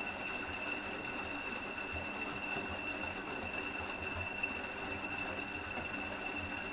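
Electrolux Aqualux EW1006f washing machine running a half-load cycle: a steady mechanical hum with a constant high whine.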